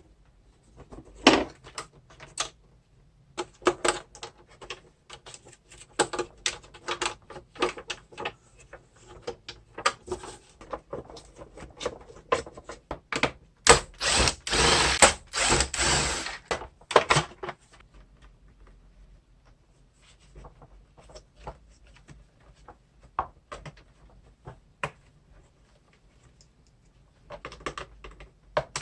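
Clicks, knocks and rattles of tools and plastic parts while a vacuum cleaner is taken apart to reach its motor, with a denser stretch of rattling and scraping in the middle lasting a few seconds.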